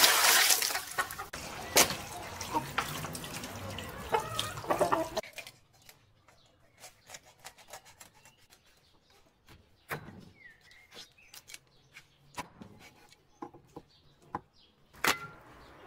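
Water pouring and splashing over plucked rooster carcasses in a bowl, loudest in the first second, then sloshing and handling of the wet birds. About five seconds in it turns quiet, with scattered light taps and clicks of the raw carcasses being handled on a wooden cutting board.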